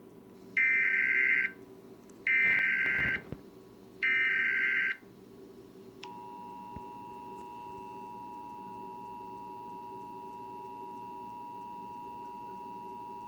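Emergency Alert System broadcast tones: three bursts of the screeching SAME header data signal, about a second each and a second apart, then about six seconds in the steady two-tone EAS attention signal begins and holds.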